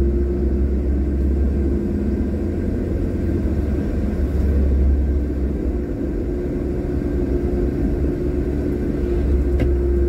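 Car cabin noise while driving: a steady low engine and road rumble with a constant hum.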